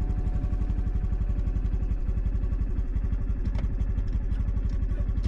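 Honda CT125 Hunter Cub's single-cylinder four-stroke engine idling, a steady, even low pulse.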